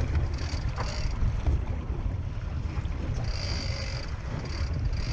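Wind buffeting the microphone over the low rumble of a boat at sea, with a few brief high-pitched whines, the longest about three and a half seconds in.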